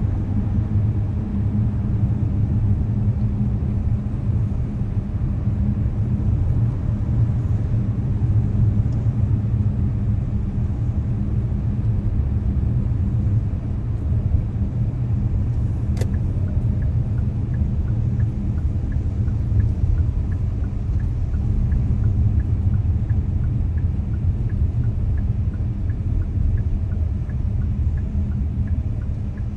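Car driving in traffic, heard from inside the cabin: a steady low rumble of engine and tyres. About halfway there is a single click, then an even ticking about twice a second from the turn-signal indicator.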